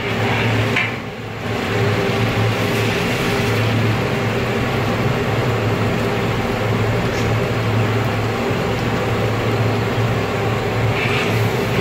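A steady mechanical hum with a strong low drone, dipping briefly about a second in.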